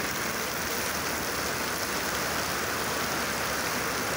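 Heavy rain pouring down steadily, an even unbroken hiss of water falling with force.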